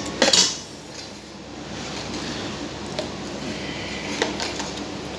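Eating utensils clinking against dishes: a loud clatter just after the start, then a few lighter, scattered clicks.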